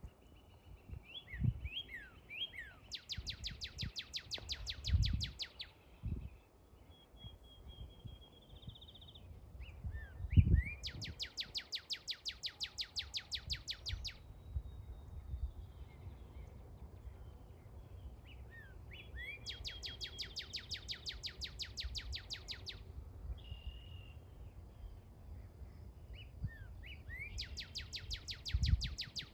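Northern cardinal singing four phrases, each a few slurred whistles running into a rapid trill of very fast sweeps that sounds like Star Wars sound effects. Low thumps come in between, the loudest about ten seconds in.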